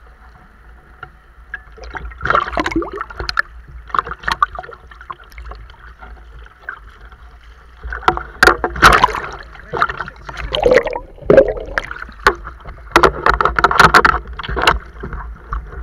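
Water sloshing and splashing around a speargun-mounted camera held at the surface as a spearfisher moves through shallow sea water. The splashes come in irregular bursts, getting busier and louder in the second half.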